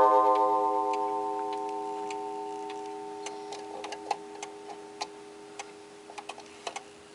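Gustav Becker wall clock's gong ringing out from a single strike and slowly fading, the half-hour strike, over the ticking of the movement. Near the end, extra clicks as the hands are pushed round.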